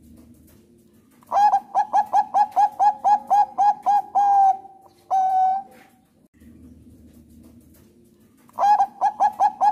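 Zebra dove of the Thai 'perkutut bangkok' song line singing: a fast run of short cooing notes, about four a second, ending in one longer held coo. A second phrase begins near the end.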